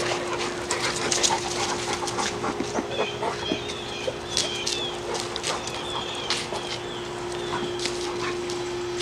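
American bully dogs playing rough on concrete: scuffling and clicks of claws and feet, with a run of short, high chirping squeaks from about three seconds in, over a steady low hum.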